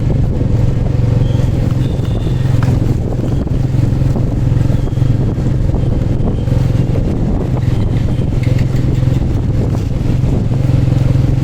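Steady engine and road noise of a moving vehicle, a constant low hum with wind buffeting the microphone.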